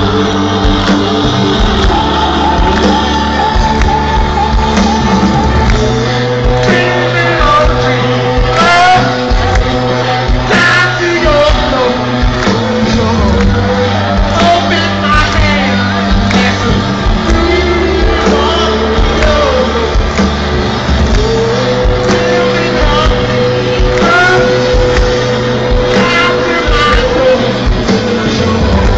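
Live rock band playing at full volume, with drums, guitars and a lead vocal of sliding, held and shouted lines, heard from inside the audience.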